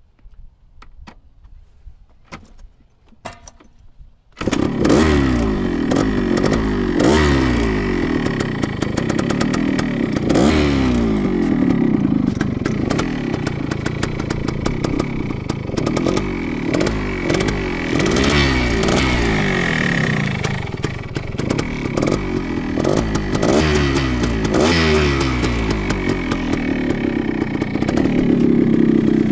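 1975 Yamaha DT175's single-cylinder two-stroke engine on a cold start: a few faint clicks, then the engine catches suddenly about four seconds in. It runs on, with the revs rising and falling again and again as the throttle is blipped.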